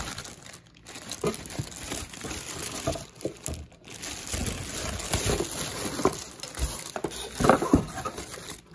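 Plastic packaging wrap crinkling and rustling as it is handled and pulled aside, in irregular crackles with the loudest ones near the end.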